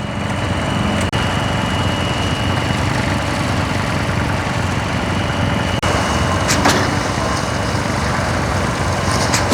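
Heavy diesel engines of concrete trucks running steadily at a slab pour, with a couple of sharp clicks in the second half.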